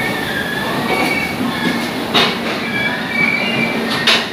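LHB passenger coaches rolling past as the express pulls into the platform: a steady rumble of wheels on rail with squealing high tones that come and go. Two sharp knocks sound, one about two seconds in and one near the end.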